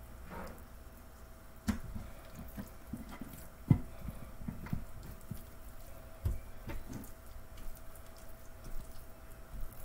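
Hands working seasoning into raw ribs on a metal sheet pan: wet squishing and slapping of meat, with irregular taps and knocks, the loudest a little under four seconds in. A faint steady hum runs underneath.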